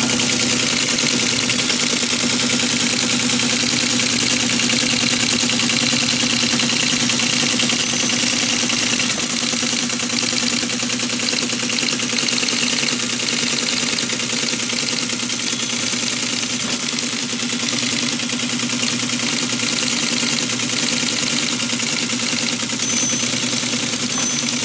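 Teletype Model 33 KSR printing a file directory listing sent from the computer at 110 baud: a fast, even clatter of the typing unit over the steady hum of its motor.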